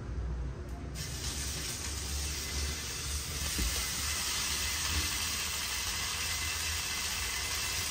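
Dabeli pav frying in butter on a hot tava: a steady sizzling hiss that starts abruptly about a second in, over a low rumble.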